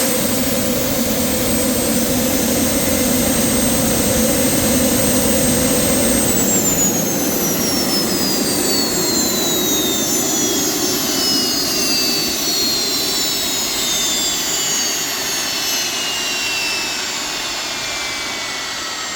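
Allison 250 turboshaft gas turbine running with a steady high whine, then spooling down from about six seconds in: the whine tones slide steadily lower in pitch and the engine noise gradually fades as the engine winds down.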